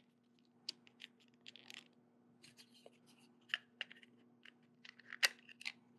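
Soft, scattered plastic clicks and taps of a 3.75-inch action figure being handled and fitted into a toy escape pod, the sharpest click about five seconds in, over a faint steady hum.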